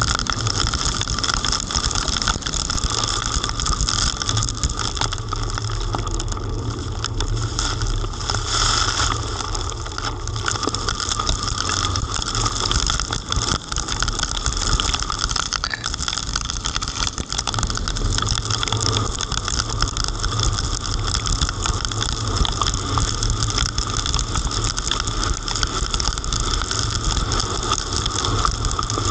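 A car driving through heavy rain on a flooded road: a steady rushing of rain and tyre spray over a low road rumble that eases for a few seconds midway.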